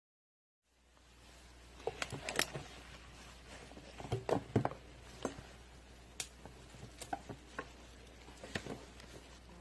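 Slime being squeezed and worked by hand, giving irregular sticky clicks and small squelching pops over a faint low hum; it starts after a moment of dead silence.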